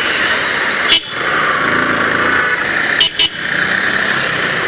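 Steady rush of wind and road noise from a motorcycle being ridden in traffic, broken by a sharp click about a second in and two more just after three seconds.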